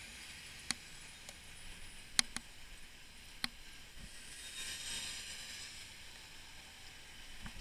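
Steady hiss of wind and surrounding traffic on a bicycle-mounted camera, swelling for a moment about halfway through. A handful of sharp clicks and knocks, the loudest about two seconds in, come from the bicycle and camera jolting over cobblestones.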